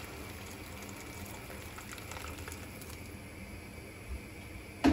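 Hot water in a pot of mushrooms sautéed in butter and flour, the liquid hissing and bubbling steadily, with a sharp knock at the very end.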